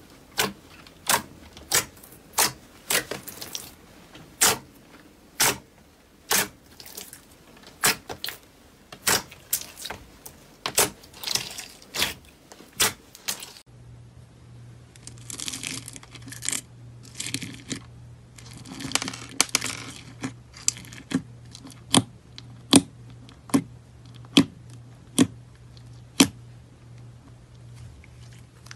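Hands pressing and poking glossy slime, giving sharp wet pops and clicks about once or twice a second as trapped air bursts. After a cut about halfway, slime packed with plastic beads is squished, with crackling, crunchy stretches and more pops over a faint low hum.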